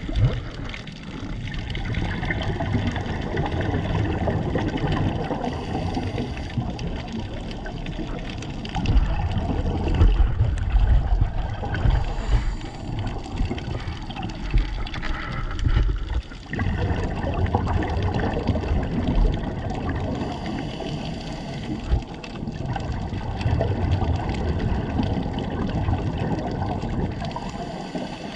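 Scuba diver breathing through a regulator, heard underwater: exhaust bubbles gurgling and rushing in uneven swells.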